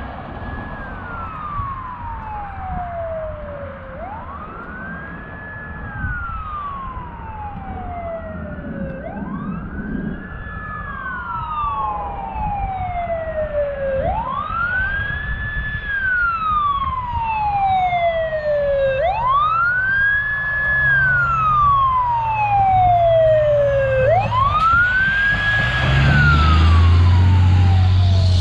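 Aerial ladder fire truck's siren running on wail as it responds code 3. Each cycle is a quick rise, a short high hold and a slower fall, repeating about every five seconds. It grows steadily louder as the truck approaches, and the truck's engine rumble comes up strongly near the end as it passes close by.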